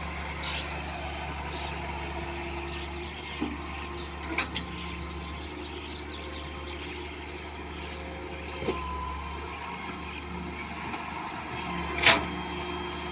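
Excavator's diesel engine running steadily, with a few sharp knocks, the loudest one near the end.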